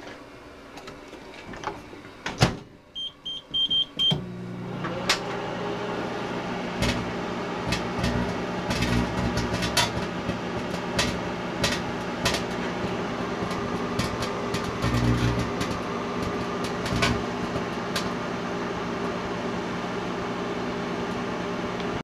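Microwave oven: a loud clunk, a few short keypad beeps, then the oven starts and runs with a steady hum. Over the hum a candle-flame plasma ball buzzes and crackles with sharp pops; the buzz comes from the microwave energy being modulated.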